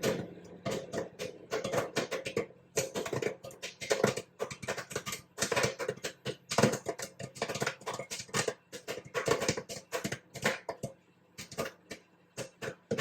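Popcorn popping: rapid, irregular pops that thin out to a few scattered ones near the end.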